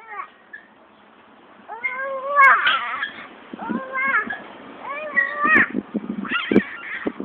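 A young child's voice making about four short, high-pitched strained calls, each rising then falling in pitch, with a few dull knocks in between.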